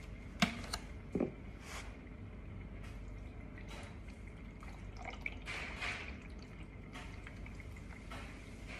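Water trickling and dripping from a small plastic cup into a steam iron's water tank. There are two sharp knocks in the first second and a half.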